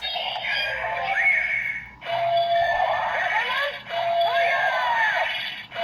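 Electronic sound effects and music from the DX Ultraman Blazar transformation toy's built-in speaker, playing a short phrase that restarts about every two seconds: a held note followed by gliding tones.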